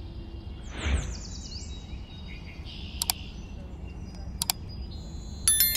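Sound effects of an animated subscribe-button outro. About a second in comes a whoosh with short chirping sweeps, then two sharp mouse-click sounds about a second and a half apart, and near the end a ringing notification-bell chime, all over a steady low rumble.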